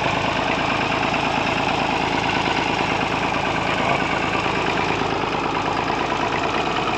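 Massey Ferguson 35's three-cylinder diesel engine idling steadily with an even diesel clatter.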